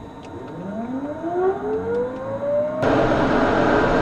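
Pratt & Whitney PT6A-67P turboprop engine spooling up on start, a whine that rises steadily in pitch. About three seconds in it gives way abruptly to a louder, steady rushing sound.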